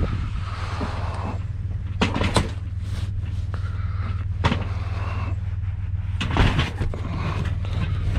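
Vehicle engine idling steadily, with several sharp knocks and clunks scattered through it.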